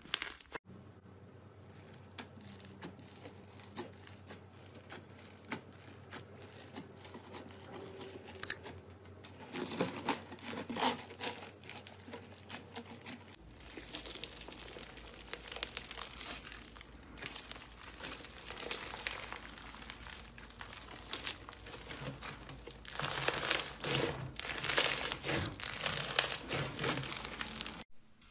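Hands squeezing and kneading slime, giving a dense run of crinkling, crackling pops. From about halfway through it is foam-bead slime (floam) crackling as it is worked, loudest near the end.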